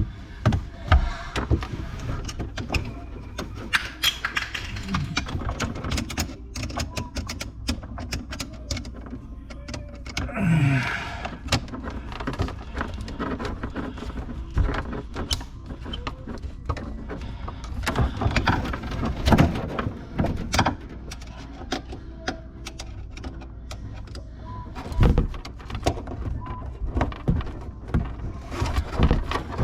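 Irregular clicks, knocks and scrapes of hand tools and faucet hardware under a kitchen sink, made while a new faucet's mounting is worked and tightened.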